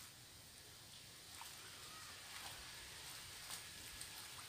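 Near silence: a faint steady hiss with a few soft, scattered ticks.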